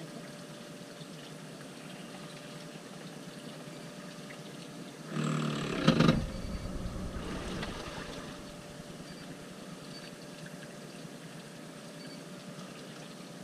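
Gentle water lapping and trickling against a boat's hull as a steady low wash, with a brief rustle ending in a sharp knock about five to six seconds in.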